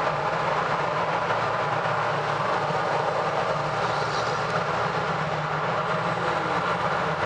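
Steady road and tyre noise of a car driving through a highway tunnel, heard from inside the cabin.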